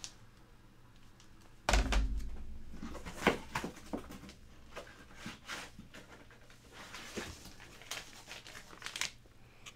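Handling of hard plastic CGC comic slabs: a dull thump a little under two seconds in as one is set down, then scattered light clicks and knocks as the cases are shuffled and the next one is picked up.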